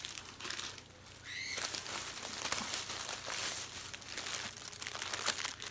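Plastic craft packaging crinkling and rustling as items are rummaged through and picked up, quieter at first and steady from about a second and a half in.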